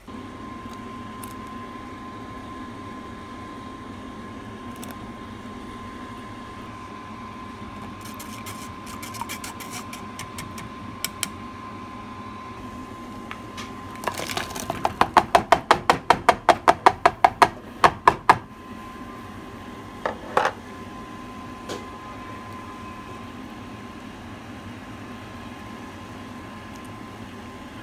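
A pot of soup boiling on a stove, a steady background with a faint steady tone. About halfway through comes a quick run of some twenty sharp knocks, about five a second, for about four seconds, with a few scattered clicks before and after.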